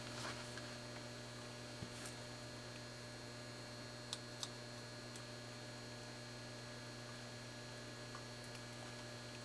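Steady low electrical mains hum with a few faint clicks, two about two seconds in and two about four seconds in.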